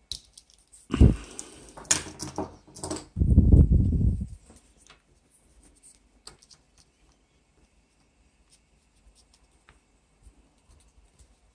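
Hand-handling noises on a tabletop: a knock about a second in, a couple of seconds of clatter and rustling, a heavier rubbing rumble about three seconds in, then only faint small clicks.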